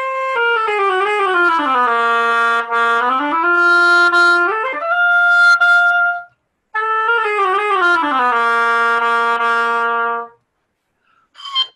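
An oboe playing a short phrase that steps down to a low held note and then climbs to a held higher note, followed after a brief pause by the same descending phrase ending on the low note. It is a reed-maker trying out a handmade reed on the instrument.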